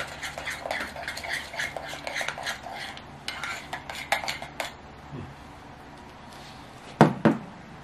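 Metal spoon stirring a thick mix of yogurt, peanut butter and protein powder in a ceramic bowl: quick scraping clinks for about five seconds, then two loud knocks near the end.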